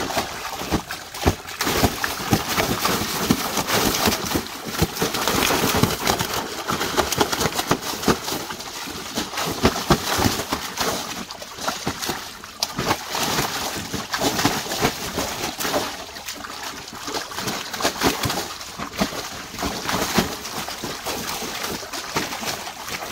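Large carp thrashing in shallow water in a tarp-lined boat well: a continual churn of splashing, broken by many sharp slaps of tails and bodies hitting the water.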